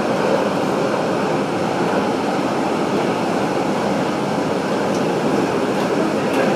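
A CTA Bombardier 5000-series rapid-transit car heard from inside while running along elevated track. Its wheels, rails and motors make a steady running noise.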